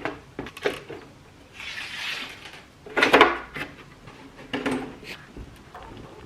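Hard plastic parts of an RC truck and its wheels being handled: scattered clicks and knocks, a rubbing noise about two seconds in, and a louder clatter about three seconds in.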